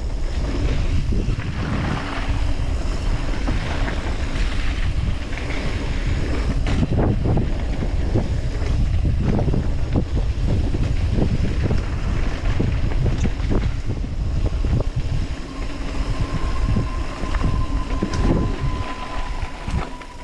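Wind buffeting the action camera's microphone at riding speed while a Commencal Clash mountain bike rolls down a dirt trail, its tyres rumbling and the bike rattling and knocking over bumps and landings. A thin, steady whine joins in near the end.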